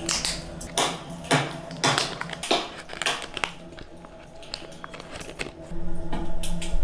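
Clear plastic wrapper crinkling and crackling as it is peeled off a small wax votive candle, in irregular bursts, louder near the end.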